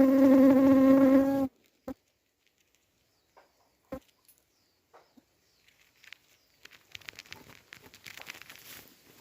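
Loud buzzing of a flying insect, wavering in pitch, that cuts off suddenly about a second and a half in. A few scattered clicks follow, then faint rustling near the end.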